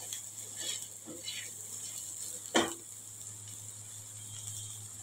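Silicone spatula stirring vegetables in a nonstick pan: a few soft scrapes, then one sharp knock about two and a half seconds in.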